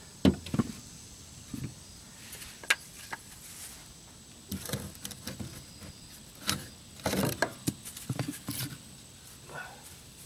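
Wooden blocks being handled and set up under a boat hull: a string of irregular knocks and scrapes of wood, in clusters, with a few louder knocks.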